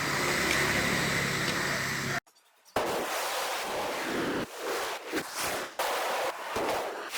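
Mini excavator's engine running steadily, cut off abruptly about two seconds in. After a brief pause, irregular crackling bursts of noise with short gaps follow.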